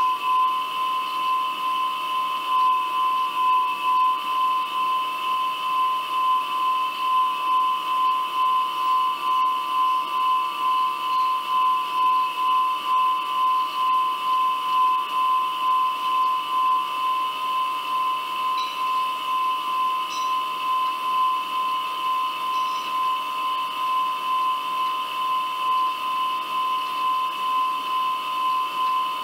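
A steady high-pitched whine with a faint hiss, pulsing gently at a regular rate; no speech.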